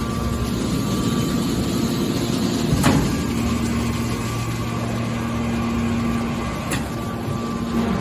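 Hydraulic can baler running: a steady machine hum from its motor and pump, with a sharp knock about three seconds in and a lighter click near the end.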